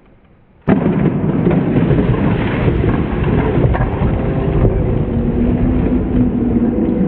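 A stack of ice blocks smashed by an elbow strike: a sudden loud crash of shattering ice under a second in. It is followed by a steady loud rush of noise that lasts several seconds and cuts off abruptly.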